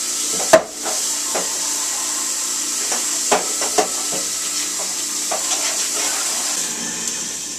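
Venison chunks frying in oil in a nonstick pan: a steady sizzle with scattered pops and crackles, the loudest a sharp crack about half a second in.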